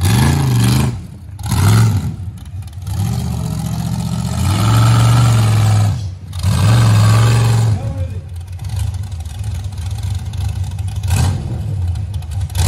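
Rock bouncer buggy's engine revving hard in repeated bursts, each rise in revs followed by a drop, as it drives up a steep rock face.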